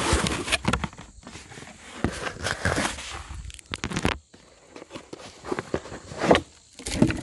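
Cardboard box and packaging being handled as a battery pack is lifted out: irregular rustling, scraping and sharp knocks, with a quieter stretch a little past halfway.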